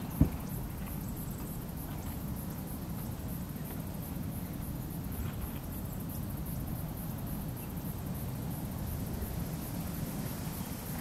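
Quiet outdoor ambience: a low, steady rumble of wind with a faint high hiss over it, and one sharp click just after the start.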